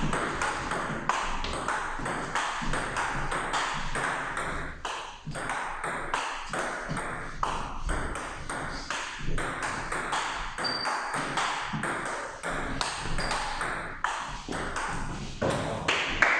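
Table tennis rally: the ball clicking sharply off rubber-faced bats and the table in quick, irregular succession.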